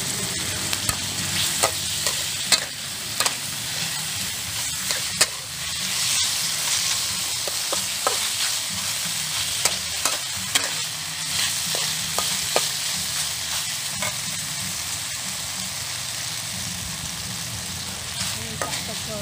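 Chopped pork and oyster sauce sizzling in a steel wok while a metal spatula stirs them, scraping and clinking against the wok. The clinks come often in the first few seconds and more sparsely later.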